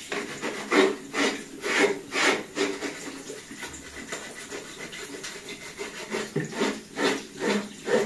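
A brush scrubbing a part of a robot vacuum cleaner under a running tap, in repeated scraping strokes about twice a second that ease off in the middle and pick up again near the end.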